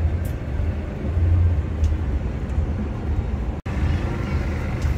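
Steady low rumble of outdoor background noise, without distinct events, that cuts out for an instant about three and a half seconds in.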